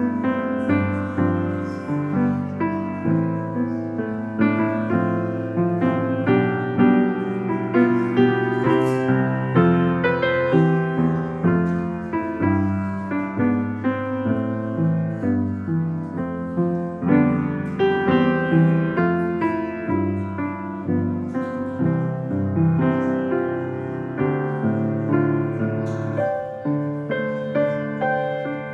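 Piano playing a piece of music, note after note over held chords.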